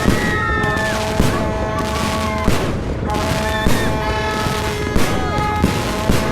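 Fireworks going off, with sharp bangs at a steady pace of about one every 1.2 seconds over a dense background of crackling. Music plays underneath.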